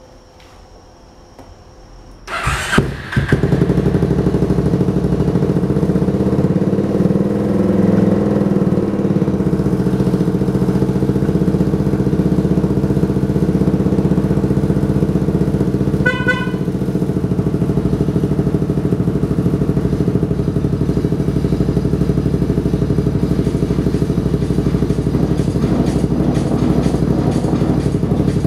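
Custom Yamaha Majesty big scooter's single-cylinder four-stroke engine is started about two seconds in, catches at once, then idles steadily. A brief beep sounds about halfway through.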